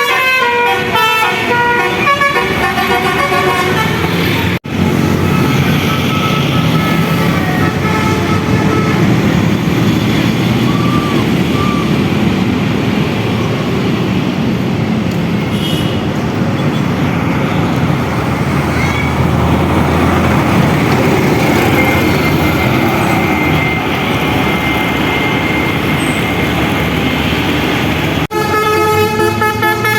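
A bus's Basuri musical air horn playing a tune in quick stepped notes, cut off suddenly about four and a half seconds in. Then a long stretch of loud vehicle and traffic noise with only a few faint horn tones, before the horn tune starts again near the end.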